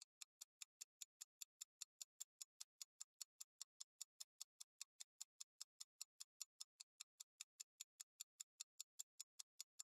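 Faint, evenly spaced ticking of a countdown-timer clock sound effect, about five ticks a second, counting down the time allowed to answer a quiz question.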